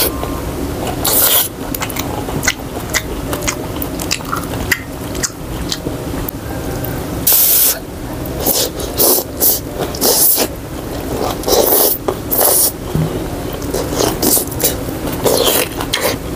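Close-miked slurping of thick rice noodles and broth from a bowl of bún bò, in short loud hissing bursts, with wet chewing and lip-smacking clicks between them.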